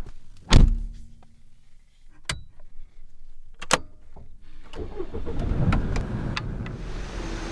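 A heavy thud about half a second in, then a few sharp clicks, then a car engine starts about four and a half seconds in and settles into a steady idle.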